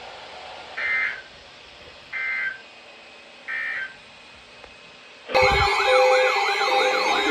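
Three short bursts of EAS/SAME digital data tones, about a third of a second each and evenly spaced: the end-of-message code that closes a NOAA Weather Radio alert. About five seconds in, loud wailing siren sounds break in abruptly, several rising and falling tones overlapping.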